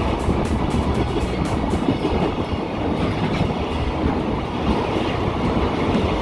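Freight train wagons rolling past at speed, a steady rumble with the wheels clacking rhythmically over the rail joints.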